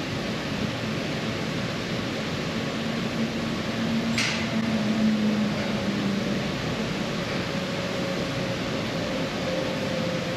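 Steady mechanical hum and hiss with a faint low tone underneath, and a brief hiss about four seconds in.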